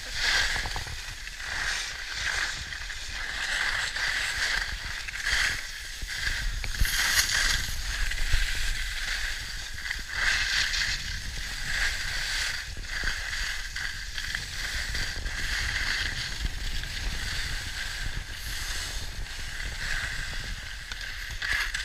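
Skis hissing and scraping over snow on a downhill run, swelling and fading with each turn, over a steady low wind rumble on the microphone.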